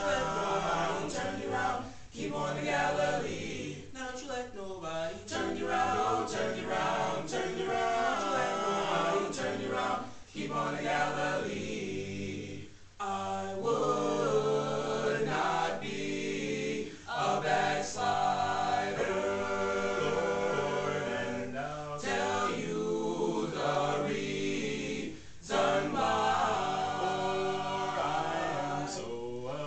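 Male a cappella vocal group singing a Black spiritual in several voices, with short pauses between phrases.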